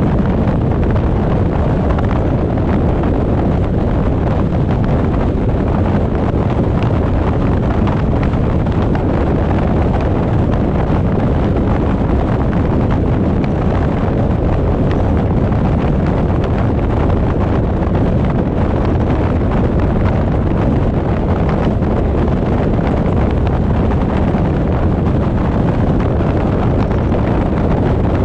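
A car driving at a steady pace: constant wind noise on the action camera's microphone over a low road rumble, without change.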